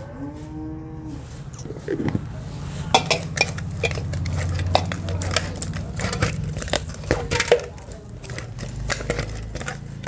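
Spinach puri dough being worked with a spoon and hands in a stainless steel bowl: quick clicks, taps and scrapes of metal against the steel bowl and soft pats of dough, coming thick and fast from about three seconds in, over a steady low hum.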